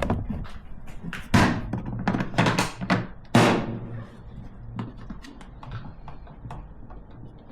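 A series of sharp knocks and clunks of hard plastic from a Milwaukee Packout top box being handled, with about five loud strikes in the first three and a half seconds and only light ticks after that.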